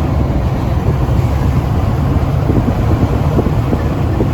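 Vehicle driving along a road: a steady low engine and road rumble, with wind buffeting the microphone.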